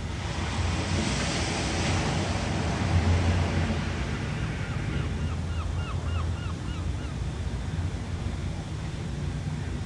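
Ocean surf: waves breaking and washing in as a steady hiss over a low rumble, with one wash swelling about a second in. Midway, a quick run of about nine short high notes sounds over the surf.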